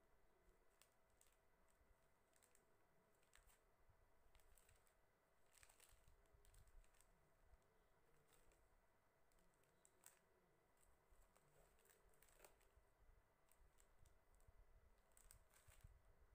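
Faint, irregular light clicks and crinkles of small plastic packets of beads being handled and set down on a plastic cutting board.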